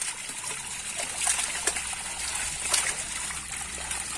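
Water trickling and splashing in a seine net crowded with live fish as they thrash and are scooped out by hand, with irregular short sharp splashes over a steady wash of water.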